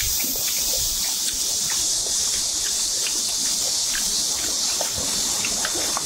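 A chorus of cicadas keeps up a steady, high-pitched drone. Light clicks of spoons and chopsticks against steel bowls are scattered through it.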